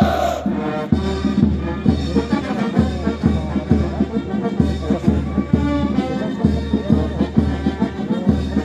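Military brass band playing a march, brass over a regular low beat.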